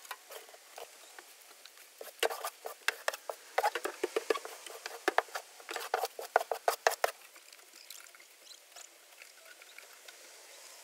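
A shovel scraping and scooping old straw and hemp bedding off a wooden coop floor, the dry litter rustling as it is tossed out. A quick run of scrapes and rustles comes from about two seconds in to about seven seconds, then it is mostly quiet with a few faint rustles.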